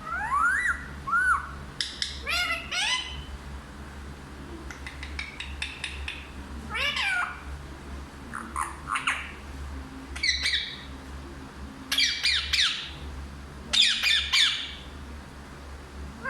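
Indian ringneck parrot squawking and calling in short bursts every second or two, many of the calls gliding up or down in pitch.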